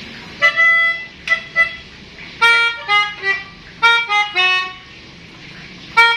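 Pianika (melodica) playing several short phrases of quick reedy notes, separated by brief pauses, imitating the multi-tone tune of a 'telolet basuri' bus horn.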